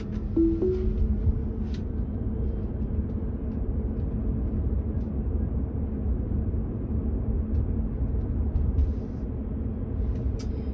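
Tesla Model 3 electric car's road and tyre noise heard from inside the cabin while driving: a steady low rumble.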